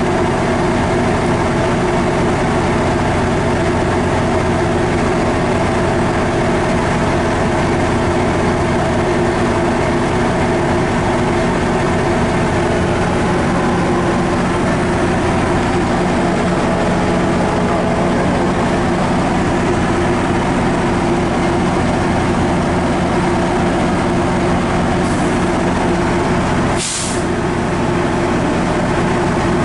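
MARC diesel locomotive running steadily with a deep, even engine hum. Near the end there is a short, sharp hiss of released air, as from the train's air brakes.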